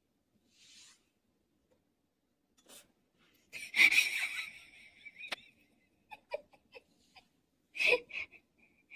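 A person laughing in two loud, wheezy bursts about four seconds apart, with short squeaky breaths between.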